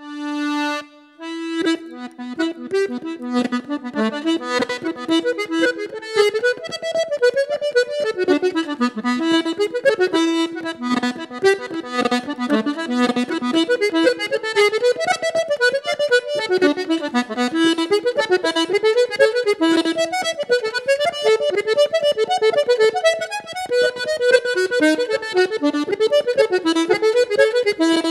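Background music led by an accordion: a held chord for about a second, then a quick-running melody of rapid notes.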